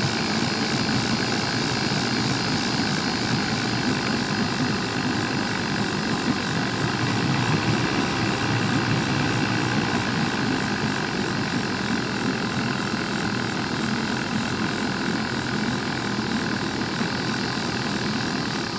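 Jon boat's outboard motor running steadily at idle, its even engine note unchanged throughout.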